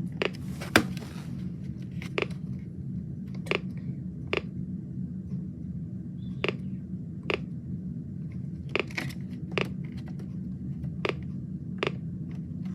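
Weather radio receiver in a gap between announcements: a steady low hum with about a dozen sharp, irregular clicks and crackles, the loudest just under a second in.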